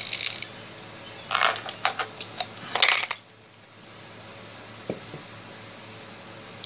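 Beads and a small glass jar clinking and rattling as they are handled, in a few short bursts, the last about three seconds in.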